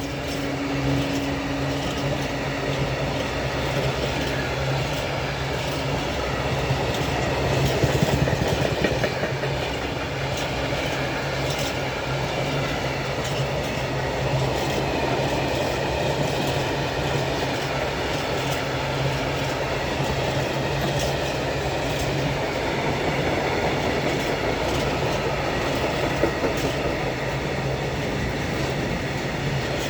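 Train rolling steadily past, wheels clicking and clattering over the rails with a steady low hum underneath.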